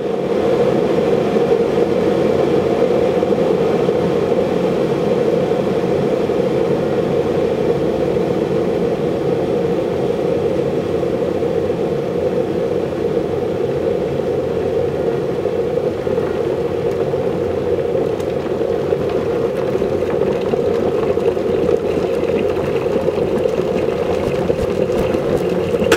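Steady, loud roar of a car driving through a road tunnel, engine and tyre noise filling the space. It starts abruptly and cuts off suddenly.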